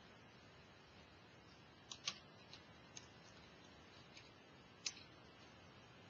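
Near silence: quiet room tone with a few faint, irregular clicks, the clearest about two seconds in and again near five seconds.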